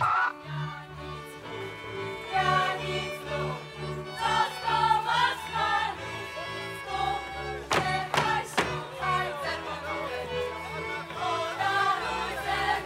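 Spisz folk dance music: a string band with fiddle and a steady bass line under a group of voices singing. Three sharp knocks sound about eight seconds in.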